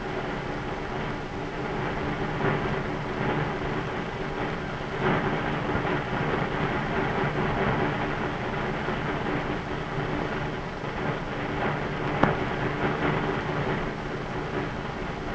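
Hiss and crackle of an old optical film soundtrack: a steady noise with a low hum and scattered clicks, one sharp click near the end.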